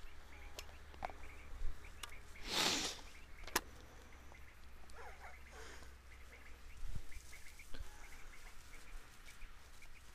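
Faint open-field ambience: small chirps repeating over and over, a short rustle about two and a half seconds in, a few light clicks, and a low wind rumble on the microphone.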